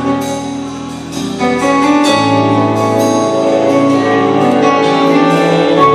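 Symphony orchestra playing the instrumental introduction to a song, dipping quieter about a second in and swelling fuller from about two seconds in.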